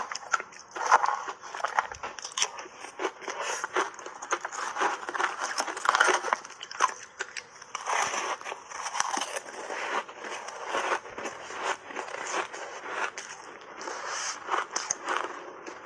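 Dense crunching and crackling of a frozen flavoured ice block being bitten and chewed, mixed with a metal spoon scraping pieces off the ice.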